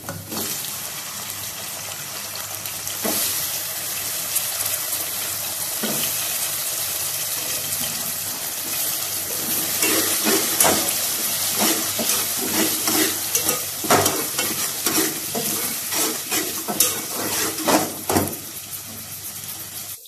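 Diced potatoes and onions sizzling as they fry in hot oil in an aluminium pot, with a metal slotted spatula scraping and clinking against the pot as they are stirred, the scrapes coming more often in the second half.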